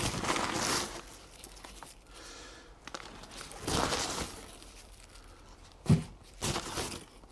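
Crinkling and rustling of dry, papery garlic bulb skins as the bulbs are handled, coming in several short bursts, with a soft knock about six seconds in.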